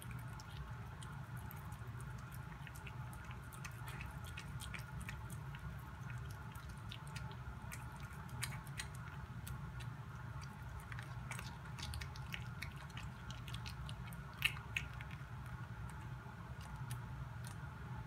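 A cat chewing shrimp: a run of small, irregular wet clicks and crunches, with one sharper click near the end, over a steady low hum.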